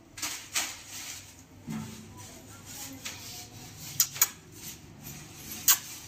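A few sharp clicks and taps: two near the start, a pair about four seconds in and another pair near the end, with faint low sounds between them.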